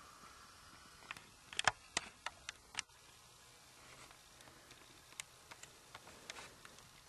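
Sharp clicks and taps of handling: a quick run of about eight between one and three seconds in, then a few scattered light ticks, over faint room tone.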